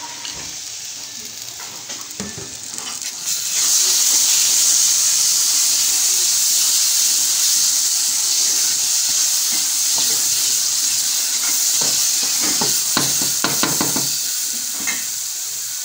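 Carrot halwa frying in ghee in a metal pot while a wooden spoon stirs it, a steady sizzle that grows suddenly louder about three seconds in. Near the end the spoon scrapes the pot several times in quick succession.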